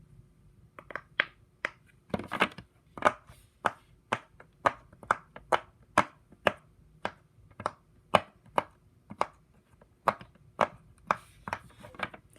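Silicone Pop It fidget toy having its bubbles pressed one after another, a sharp pop about twice a second.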